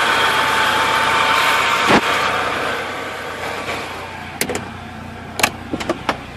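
Car engine running, then dying away about two seconds in as the petrol runs out, followed by a few sharp clicks.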